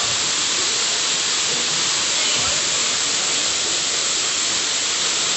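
Waterfall pouring into its plunge pool: a steady, hissing rush of falling and churning water.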